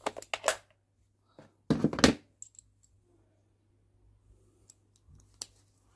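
Hand tools being handled: a steel socket and extension clicked together and a plastic socket case handled, giving sharp metallic clicks and clatters in two clusters, at the start and about two seconds in, with a single click near the end.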